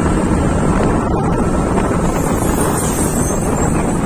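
Wind rushing over a phone microphone carried on a moving motorcycle, over a steady rumble of motorcycle engine and tyre noise.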